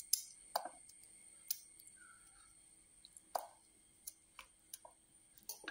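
Faint, irregular clicks of a small knife slicing through a fresh turmeric root held in the hand, the slices dropping into a stainless steel pan, about eight in all.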